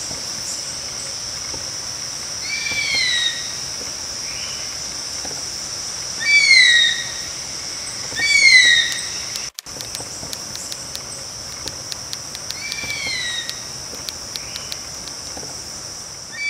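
Nature sound bed: a steady high insect drone with a bird's short arched whistled call repeating five times, the calls being the loudest sounds. Faint rapid ticking runs through the second half.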